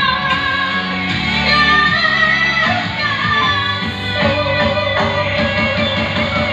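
A woman singing a slow ballad into a microphone over a karaoke backing track with guitar, with a long held note in the second half.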